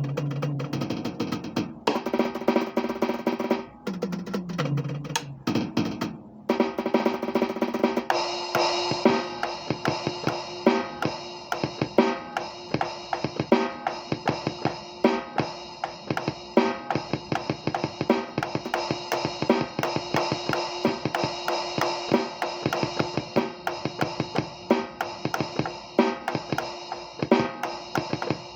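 A drum kit being played freely. Tom fills run down the toms in the first several seconds. From about eight seconds in, it settles into a steady beat of bass drum and snare under ringing cymbals.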